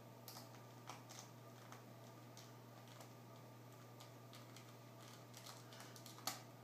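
Scattered small clicks and taps of plastic and metal parts being handled while the netbook's screen is refitted into its lid, with one sharper click near the end, over a steady low hum.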